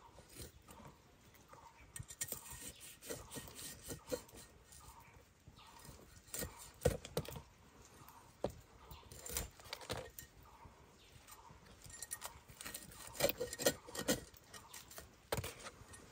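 Large kitchen knife cutting food on a wooden board: irregular knocks and scraping strokes with occasional metallic clinks.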